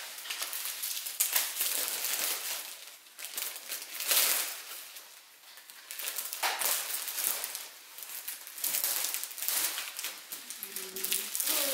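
Packaging being handled and crinkled, with irregular rustles, some louder than others.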